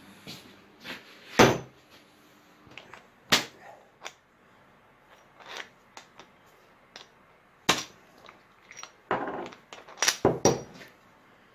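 Irregular knocks and clicks as steel bolts, a shaft and ball bearings are handled and fitted into polyamide pallet-jack rollers on a workbench, with a few sharper knocks standing out and a quicker cluster near the end.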